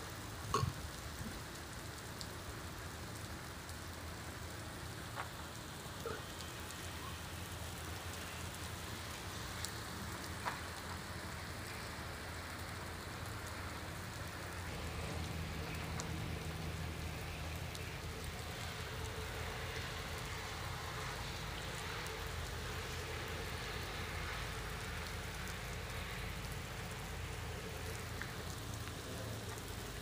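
Steady rain falling on a wet paved road and puddles, an even hiss with a few sharper drip ticks. The hiss grows a little louder about halfway through.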